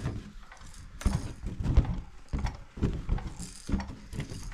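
A series of soft, irregular thuds and knocks, about one or two a second.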